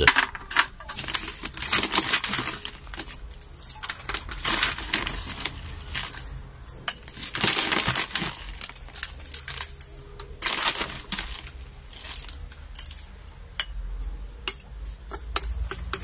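Pieces of lava rock tipped from a glass bowl into a glass terrarium, clinking and rattling against the glass in several clattering spills about a second long, with scattered single clicks between; this is the drainage layer that keeps the soil from staying wet. Gritty succulent soil is then poured over it and worked by hand.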